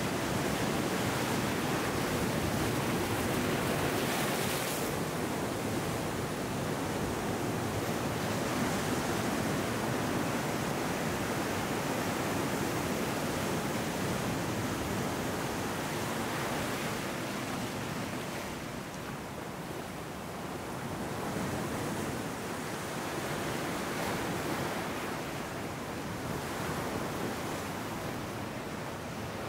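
Ocean surf breaking and washing among rocks on a sandy beach: a steady rush of waves that eases a little just past the middle and then builds again.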